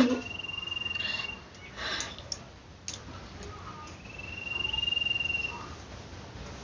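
A sneeze ends right at the start, followed by short nasal sniffs and breaths. In the background, two long steady high whistled notes sound about a second and a half each, the second one louder.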